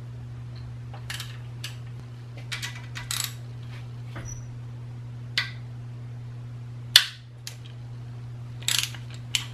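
A hand ratchet working loose the head bolts on a BMW M50 cylinder head: scattered metallic clicks and short ratchet runs, with one sharp crack about seven seconds in.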